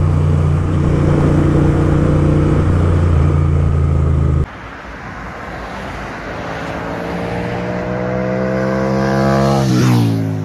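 Royal Enfield Interceptor 650's parallel-twin engine through loud aftermarket Gursewak exhausts, running steadily at speed as heard from on the bike. It then sounds from the roadside, its note rising and getting louder as it approaches, and drops sharply in pitch as it passes near the end.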